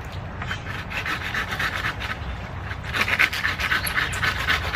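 A folding hand saw cutting through a small piece of wood: long, even back-and-forth rasping strokes, about three to four a second, getting louder and more forceful about three seconds in.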